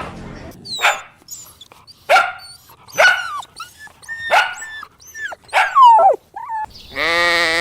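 A dog giving a run of short, high yips and barks, about one a second, some sliding down in pitch. Near the end a long, steady bleat begins.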